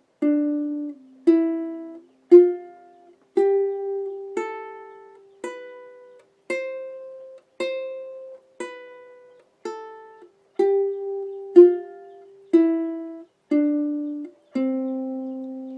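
Ukulele played one plucked note at a time: a C major scale stepping up to the high C and back down, about one note a second, each note ringing and fading. It ends on a long, sustained low C.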